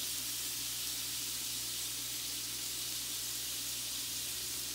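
Shrimp sizzling in a hot stainless steel pan, a steady frying hiss.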